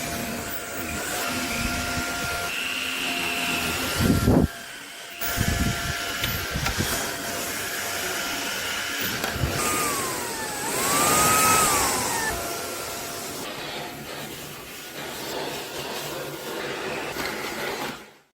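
Dreame Z30 cordless stick vacuum running, a steady rush of suction with a steady high tone over it. There are a few knocks of the floor head about four seconds in, and a shift in pitch that dips and then rises near the middle. The sound stops abruptly near the end.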